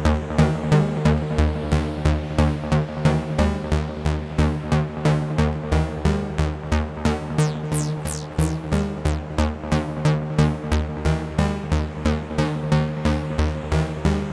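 AE Modular synthesizer patch playing sequenced electronic music: a steady pulse of repeating synth notes over a held low drone, with a few falling high-pitched swoops near the middle.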